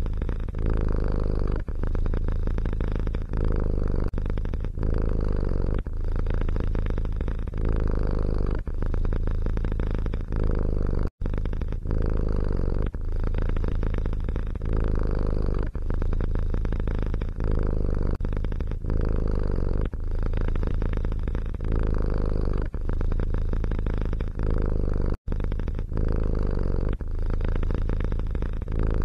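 Domestic cat purring loudly and close up. The rumble swells and dips with each breath, about once every second and a half, and cuts out for an instant twice.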